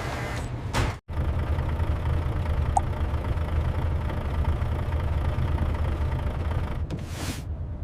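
Delivery truck engine idling with a steady low rumble, cut off for an instant about a second in, with short rushing sweeps just before that and near the end.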